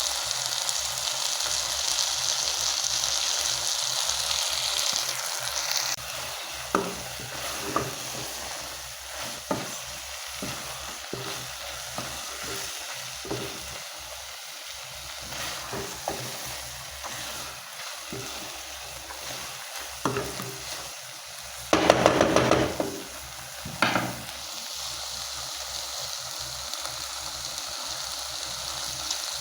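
Food sizzling in a cooking pot while a spoon stirs it, scraping and tapping against the pot. The sizzle is loudest for the first six seconds, and there is a louder scraping clatter about 22 seconds in and a shorter one two seconds later.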